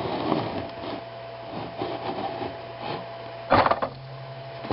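Small metal parts of a mortise lock cylinder being handled during disassembly: light scraping and faint ticks, with one sharper clack about three and a half seconds in.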